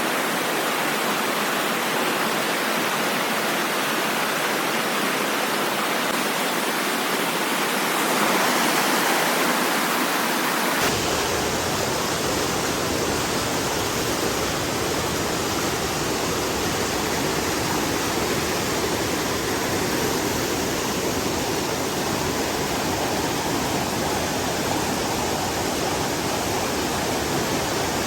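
Waterfall's steady rush of water. About ten seconds in, the sound changes abruptly and a deeper rumble joins it.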